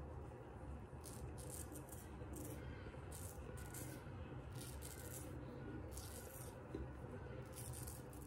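Inoue Tosuke kamisori straight razor scraping stubble off a lathered face: a series of short, crisp scraping strokes, irregularly spaced, starting about a second in.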